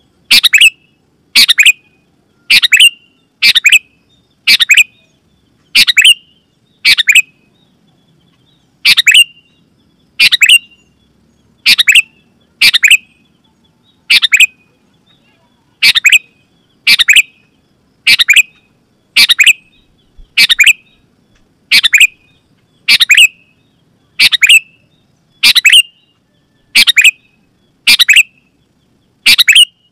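Sooty-headed bulbul (kutilang) calling loudly: a short, sharp note repeated about once a second, each one sweeping down in pitch to a brief clear tail.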